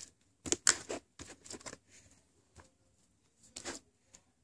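Foam-bead slime being handled and pressed by hand in a plastic bowl, giving short irregular crackles and clicks in clusters, mostly in the first two seconds and again once near the end.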